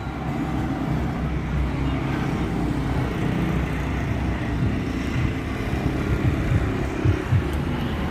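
Diesel engine of a Komatsu 170 wheeled excavator running steadily at a low, even speed.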